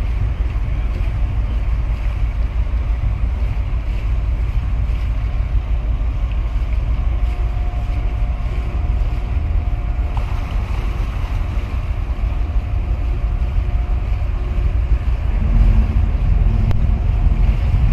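Steady low rumble of wind buffeting the microphone, mixed with the faint engine hum of the passing cable-laying ship. The rumble grows louder, with a deeper hum, from about fifteen seconds in.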